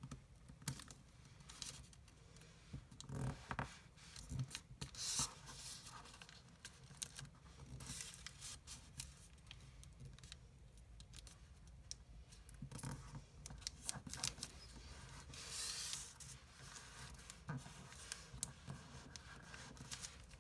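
Square of thin origami paper rustling and crinkling as fingers fold it and run creases along it, in irregular short scratches with a longer rustle about three quarters of the way through.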